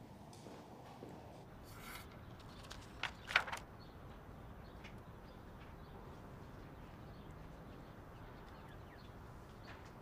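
Faint room tone, with a quick cluster of three sharp taps about three seconds in.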